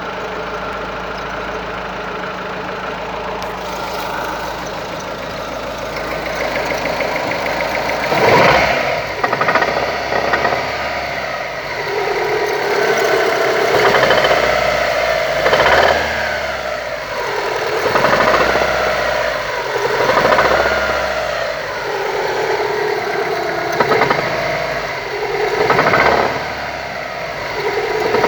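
Daewoo Nexia 1.6 16-valve four-cylinder engine idling, then revved in short blips about every two seconds, with a knock that the owner cannot identify.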